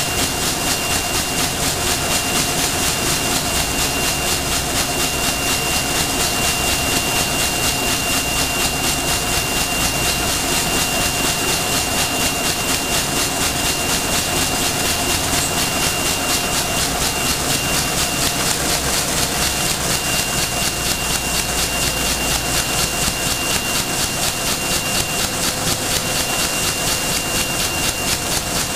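Plastic bag-making machine running with its CT-9914 left-hand wicketer cycling, its rotating stacker arms swinging bags round: steady machine noise pulsing in a fast, even rhythm, with a steady high whine over it.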